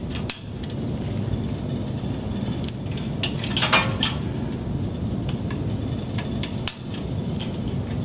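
MPO fibre-optic connectors being pushed into the adapters of a fibre panel blade: scattered small hard plastic clicks, with a short rattling cluster of handling about halfway through, over a steady low hum.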